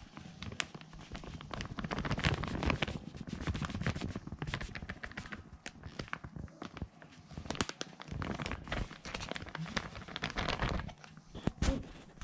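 A plastic bag of potato starch crinkling and rustling in the hand as starch is shaken out of it over a bowl of raw prawns, with quick irregular crackles throughout.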